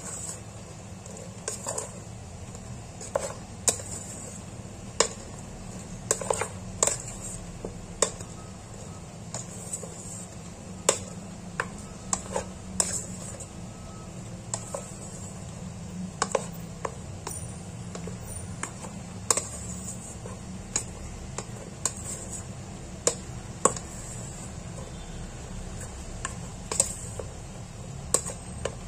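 Plastic rice paddle stirring warm rice in a rice cooker's inner pot, knocking and scraping against the pot in irregular clicks about every second, over a steady low hum.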